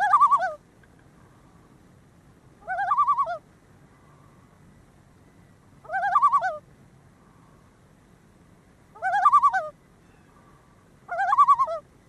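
Common loon calling: five short wavering calls, the pitch quavering rapidly up and down, repeated about every three seconds.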